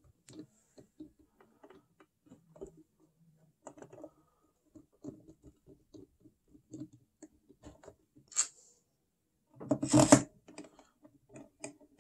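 A screwdriver turning screws into the metal mechanism plate of a Technics SL-3300 turntable, making a run of small, irregular clicks and ticks. Two louder scuffs come near the end.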